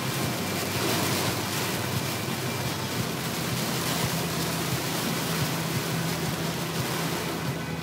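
Heavy downpour on a moving car: rain on the roof and windscreen and tyres running through standing water on a flooded road, heard from inside the cabin as a steady rushing hiss over a low road drone.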